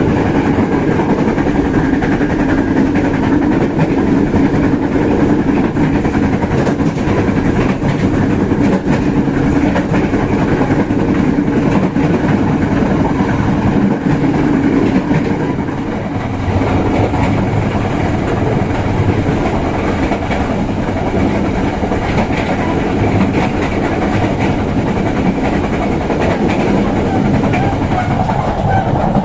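Passenger train running at speed, heard from inside a carriage: a steady rumble of wheels on rail with faint clickety-clack over the rail joints. About halfway through the low hum fades and the noise dips briefly, then the running continues.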